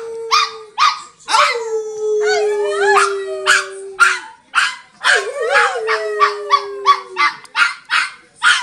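A man howls in long, held "ooo" notes while a Chihuahua in his arms howls along with wavering, rising-and-falling yowls and rapid sharp yips, about four a second.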